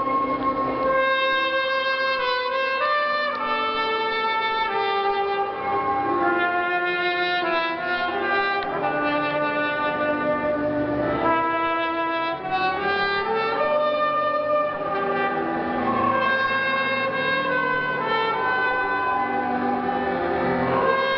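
Clarinet playing a melody of changing notes, with no break.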